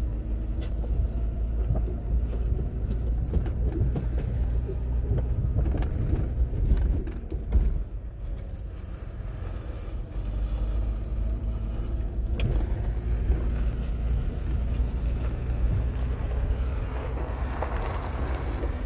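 Truck driving, heard from inside the cab: a steady low rumble of engine and road noise, with a few knocks and rattles about seven seconds in.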